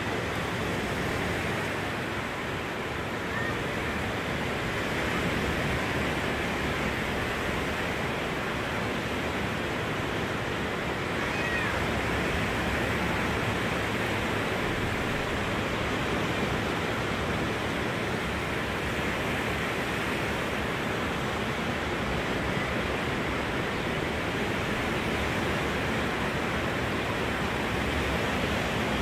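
Steady rushing wash of surf breaking along the beach, heard from high above so that the waves blend into one even noise.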